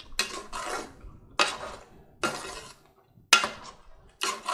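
A metal spoon scrapes and stirs thick mutton curry against the sides and bottom of a cooking pot. There are about six sharp, uneven strokes, roughly one a second, as the curry is fried down (bhuna).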